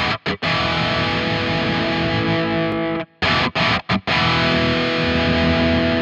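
Donner Hush X headless electric guitar through a Mooer Prime P2 on a djent preset with the EV 5050 DS high-gain amp model, heavily distorted. A few short stabs cut off abruptly at the start, a long held chord, another burst of short cut-off stabs about three seconds in, then a held chord ringing.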